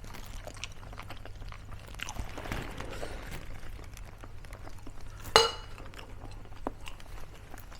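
Cutlery and dishes clinking during a meal, with small scattered clicks and one loud ringing clink about five seconds in.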